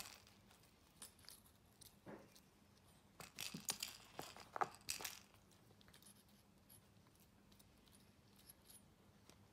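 A teething Maltese puppy chewing and gnawing a knitted plush elephant toy: faint, scattered clicks and rustles, with a busier run of them about halfway through.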